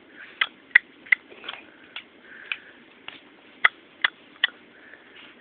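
A baby clicking the tongue against the roof of the mouth, a string of about a dozen sharp clicks at an uneven pace, with a few soft breathy mouth sounds between them.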